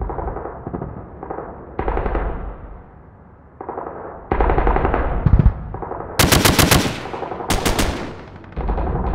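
Automatic gunfire in a firefight: steady shooting throughout, then two louder bursts of rapid fire about six and seven and a half seconds in, the second one shorter.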